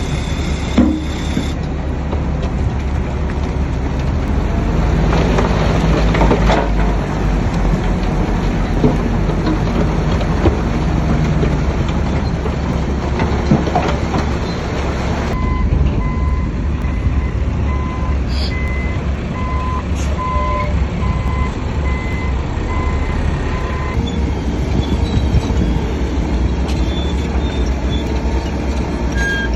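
Heavy diesel machinery running: dump truck and bulldozer engines at work. In the second half a truck's reversing alarm beeps repeatedly for several seconds.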